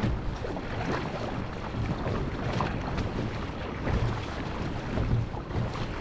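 Wind buffeting the microphone over the splash and wash of choppy sea water against a kayak being paddled, with paddle-stroke splashes about once a second.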